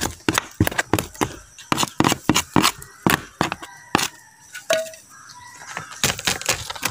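Pink plastic cage tray knocked repeatedly against the ground to shake out wet wood-shaving bedding: a run of sharp, irregular knocks, two or three a second, pausing for a moment in the middle and starting again near the end.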